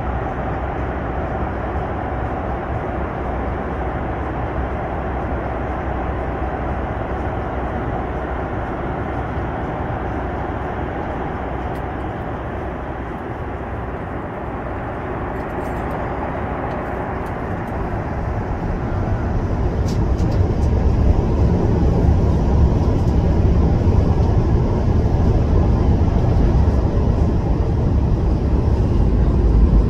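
Steady cabin noise inside a Boeing 737 MAX 9 airliner in flight, an even hiss and rumble of engines and airflow. About two-thirds of the way through, it grows louder with a deeper rumble as the aircraft comes down over Panama City.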